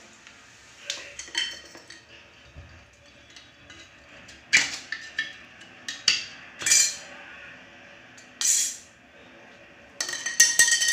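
Metal rod prying at a stainless steel floor drain grate set in tile: a series of sharp metallic clinks and scrapes as the grate is levered loose, ending in a rapid clatter.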